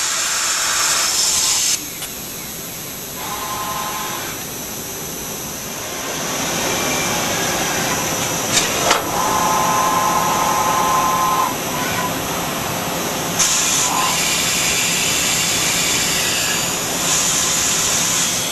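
Micro milling machine running with a steady hiss. A whining tone comes in twice, briefly early on and for about two seconds near the middle, just after two sharp clicks.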